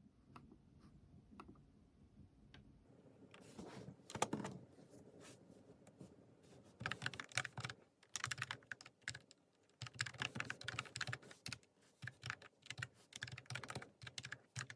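Typing on a computer keyboard: a few scattered keystrokes at first, then quick runs of key clicks in bursts with short pauses between them.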